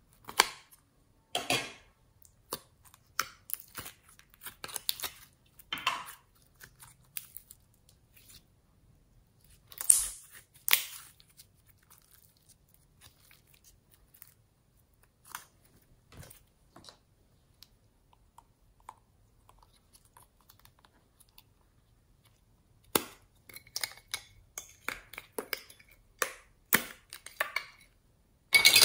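Plastic slime containers being handled and opened, giving sharp clicks and snaps of their lids, the loudest about ten seconds in and at the very end. In between, fainter sticky crackles of slime being stretched and squished by hand.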